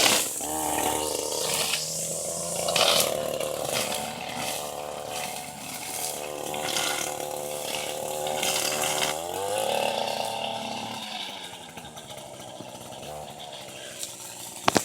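String trimmer (weed eater) running steadily at high speed for about nine seconds, spinning zip ties in place of trimmer line. Its pitch then drops as the throttle is let off, and it settles to a lower, quieter idle.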